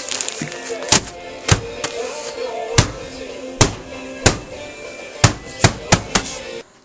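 A hard-packed bag of brown sugar being whacked about ten times at an uneven pace to break up the caked sugar, with music playing underneath.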